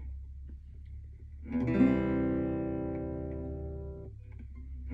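Acoustic guitar: a chord strummed about a second and a half in, left to ring and slowly fade, then the next chord struck near the end, opening a song. Beneath it runs a low steady hum.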